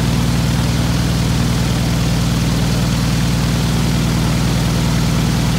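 UL Power UL520iS six-cylinder, air-cooled aircraft engine running steadily at about 1180 rpm, heard from the cockpit.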